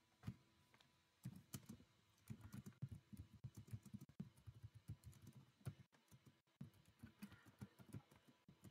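Faint typing on a computer keyboard: a quick, uneven run of key clicks starting about a second in.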